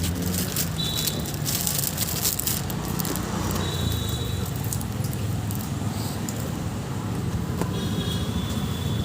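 Busy street ambience: steady traffic noise with a low hum, broken by short high-pitched beeps about a second in, around four seconds in, and again near the end.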